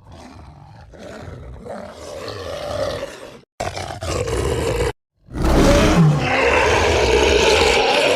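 Werewolf creature vocal sound effects in three separate takes: a quieter growl that builds for about three seconds, a short one after a brief silence, then a long, loud roar from about five seconds in.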